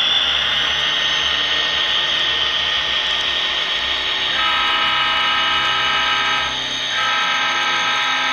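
Diesel locomotives rolling past with steady running noise and a slowly rising whine. About four seconds in, a multi-note horn sounds, stops briefly, then sounds again in a second long blast.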